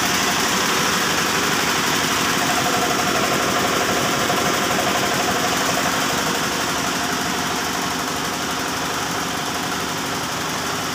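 Yanmar TF105R single-cylinder diesel engine running steadily under test, driving a belt-driven twin-cylinder air compressor pump.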